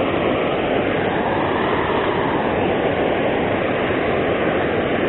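Steady rush of water pouring over a low river weir, an even noise without breaks.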